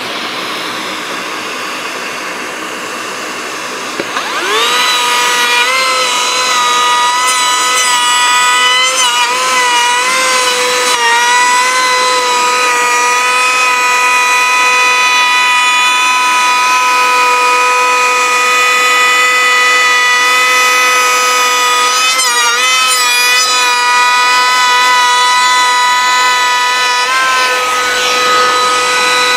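Cordless vacuum running with a steady hiss, then about four seconds in a Greenworks G24RO 24 V brushless trim router starts with a high steady whine. The whine dips in pitch briefly several times as the bit cuts into a plywood board.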